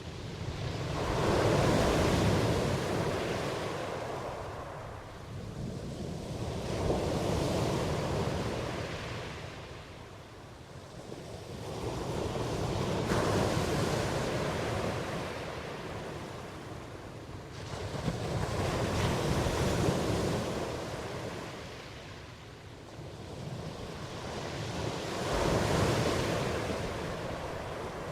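Ocean waves washing in and receding in slow surges, one about every six seconds, five in all.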